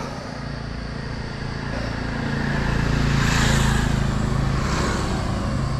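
A motor vehicle going past: a low engine hum with tyre noise that swells to a peak about halfway through and then fades.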